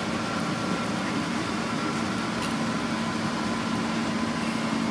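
Steady hum of a running machine in the workshop, holding one constant pitch, with a couple of faint clicks about two seconds in.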